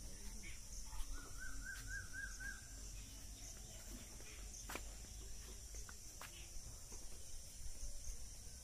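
Quiet outdoor rural ambience: a steady high insect chirring throughout. About a second in, a bird gives a quick run of about six chirps, and a few faint clicks follow.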